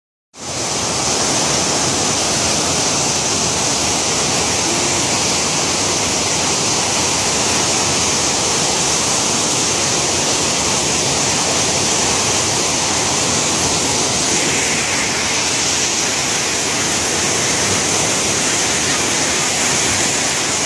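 Waterfall rushing, a loud, steady roar of falling water with a strong hiss.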